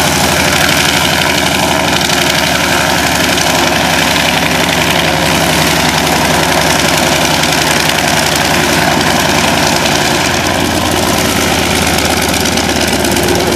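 Radial engine of a vintage biplane fighter running at idle as it taxis, a steady low pulsing, with a slight change in pitch about ten seconds in.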